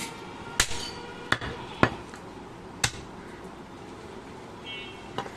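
A butcher's heavy cleaver chopping goat meat on a wooden log chopping block: about five sharp chops at irregular intervals, the loudest about two seconds in.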